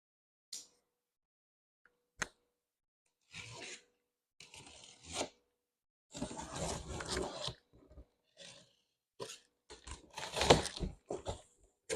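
Cardboard packaging being torn and pulled open in irregular bursts, with crunching, scraping and sharp clicks.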